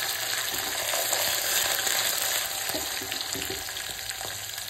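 Peanuts frying in hot oil with a tempering of mustard seeds, curry leaves and green chillies: a steady sizzle with fine crackling, easing off slightly toward the end.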